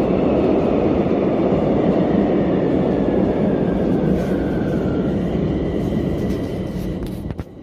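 Metro train running, heard from inside the car: a steady rumble of wheels and motors with a faint whine that slowly falls in pitch. The sound grows gradually quieter and cuts off abruptly near the end.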